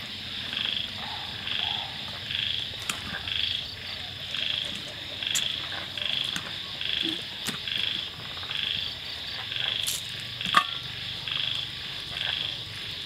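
Night chorus of calling animals: one call repeats about twice a second over a steady high drone. A few sharp clicks fall across it, the loudest about ten and a half seconds in.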